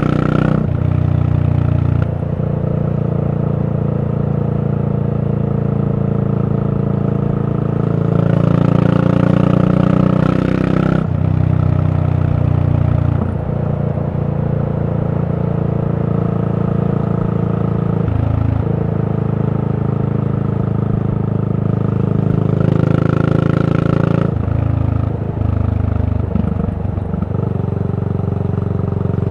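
Yamaha SR400's air-cooled single-cylinder four-stroke engine running under way through a Goods Tapered Cone slip-on muffler. Its exhaust note falls and rises several times with throttle and gear changes.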